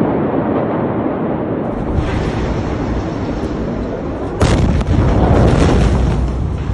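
A loud, dense rumble, then, about four and a half seconds in, a sudden loud explosion boom followed by heavy rumbling that slowly dies away.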